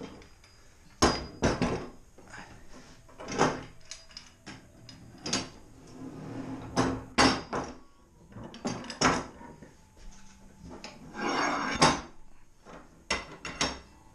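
Steel pipes and Kee Klamp pipe fittings knocking and clanking on a wooden worktop as a pipe frame is handled and laid out: a dozen or so separate sharp knocks, with one longer rasping sound about three-quarters of the way through.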